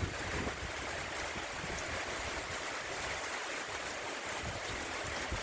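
Tropical storm wind and rain: a steady, even rushing hiss with no distinct events.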